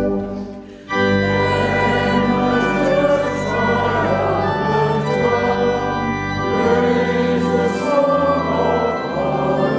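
Church organ accompanying a congregation singing a hymn, with a short break just after the start before the next line begins.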